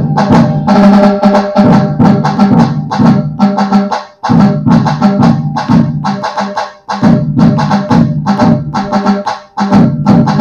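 Puneri dhol-tasha pattern played on a Roland HandSonic electronic hand-percussion pad: the deep dhol beat with fast, crisp tasha strokes combined over it. It repeats in phrases of about three seconds, each ending in a brief break.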